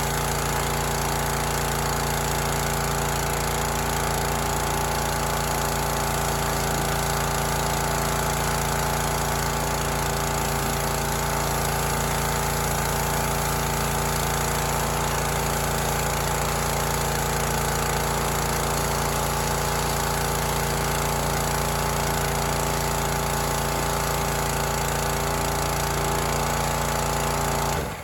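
Pressure washer's Rato 209 cc single-cylinder engine, a Honda clone, running steadily after being started, then cutting off abruptly near the end.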